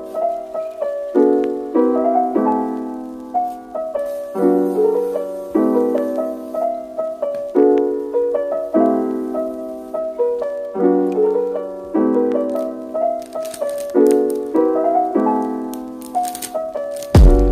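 Soft background piano music, a new chord about every second.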